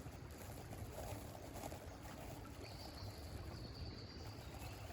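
Faint outdoor ambience: a low, steady rumble, with a thin, high bird note held for about a second and a half midway.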